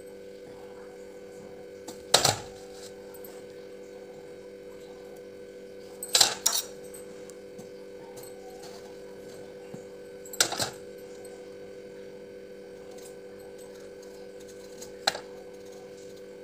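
A kitchen knife peeling the hard skin of a bottle gourd (lauki), a sharp scrape or click every few seconds, five in all, the third and fourth close together, over a steady electrical hum.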